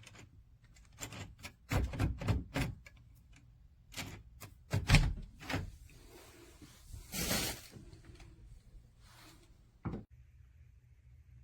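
Door lever and latch hardware being handled and worked: a series of metallic clicks and knocks, the loudest about five seconds in, a short scraping rasp about seven seconds in, and one sharp knock near the end.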